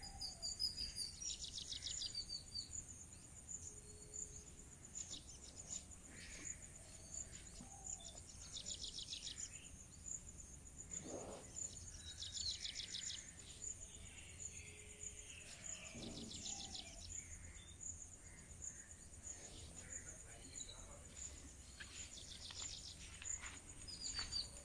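Steady high chirring of insects, with a bird repeating a short trilled call every few seconds and a faint low rumble underneath.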